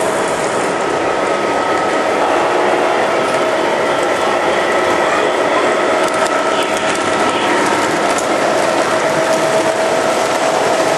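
Lionel model trains running on the layout: a steady mechanical clatter of wheels and gearing on the track, with a constant hum.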